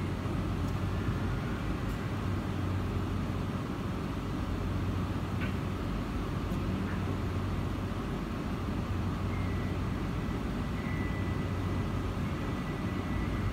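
Steady low rumble of street traffic muffled through a café's glass front, over a constant low hum.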